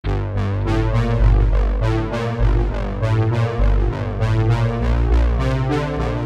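Background music: an instrumental electronic track of synthesizer keyboard chords over a deep bass line, starting abruptly with a steady beat.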